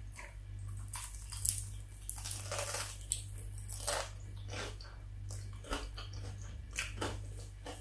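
Crunching bites into crispy battered fried chicken and chewing, the coating crackling in a run of sharp bursts, thickest in the first half. A steady low hum runs underneath.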